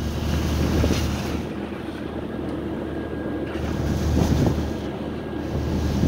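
Sea water rushing and churning along the hull of a moving ship, with wind buffeting the microphone and a steady low hum from the ship underneath. The rush swells about a second in and again past four seconds.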